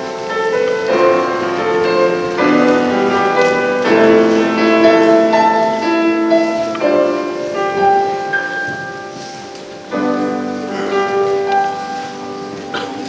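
Solo piano playing a passage of sustained chords that change every second or so, as the introduction to a choral song.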